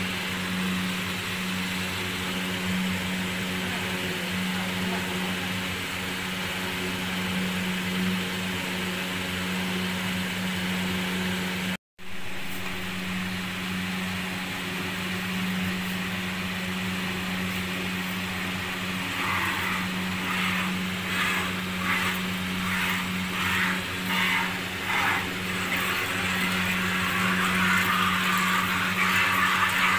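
A steady low machine hum with a hiss underneath, its source unseen. From about two-thirds of the way in, milk squirts rhythmically into a plastic bucket, about two a second, as a cow is hand-milked, merging into a more continuous swish near the end.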